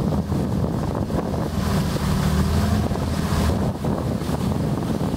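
Small river boat's motor running steadily under way, with wind rushing over the microphone.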